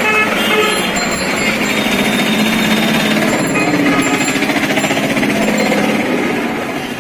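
An engine running with a rapid, steady pulsing beat.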